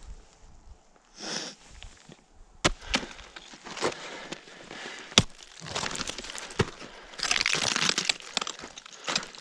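Ice axe picks striking frozen snow, turf and rock: several sharp strikes, with crunching and scraping of snow between them.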